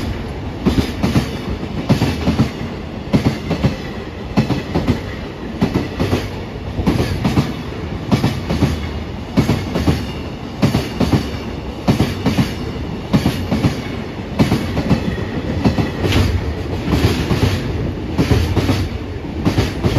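Long freight train of container wagons passing close at speed: a steady rumble with wheels clattering in a repeating rhythm over the rail joints.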